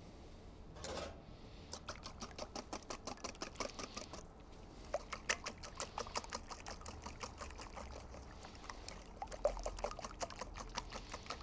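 Wire whisk beating raw eggs in a stainless steel bowl: quick, regular clicks of the whisk against the metal, about five a second, with the wet slosh of the egg, starting after a second or two.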